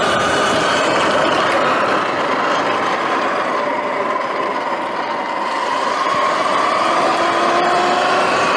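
Sur-Ron Light Bee X electric dirt bike riding over dirt: a whine from the electric motor and drivetrain that falls in pitch as the bike eases off around the middle, then rises again as it speeds up, over a steady rush of wind and tyre noise.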